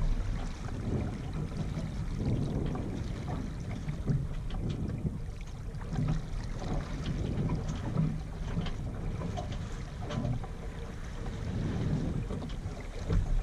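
Wind buffeting the action camera's microphone in uneven gusts, with water washing along the hull of a Yamaha 24 sailboat moving slowly under sail.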